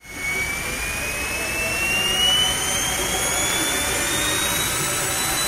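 Powerfun 70 mm, 12-blade electric ducted fan running hard, a rushing blast of air with a high whine that climbs slowly in pitch as the fan speeds up.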